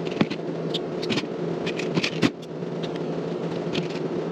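Steady low drone of an indoor shooting range's ventilation, with scattered light clicks and knocks from .22 LR cartridges and a magazine being handled at the bench.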